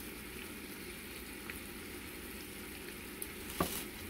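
Soft, steady sizzling of chicken and caramelized onions in a skillet on the stove, with one short clack about three and a half seconds in.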